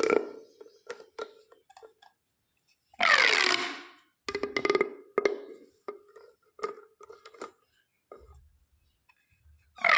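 Corrugated plastic pop tubes being pulled and squashed. About three seconds in comes a loud rasping crackle that slides down in pitch, and a similar one comes near the end. Between them are scattered pops and clicks with a hollow ring.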